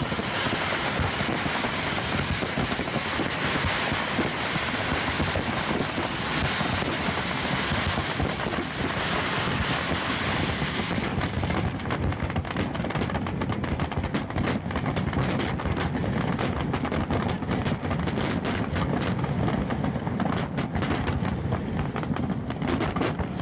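Fireworks display at its height: many shells and comets bursting at once in a continuous dense crackle, which turns into a rapid rattle of separate sharp pops about halfway through.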